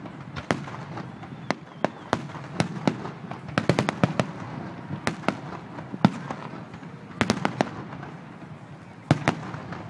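Fireworks display: aerial shells bursting in sharp bangs at an irregular pace, about two a second, with quick rapid-fire clusters about four seconds in and again about seven seconds in.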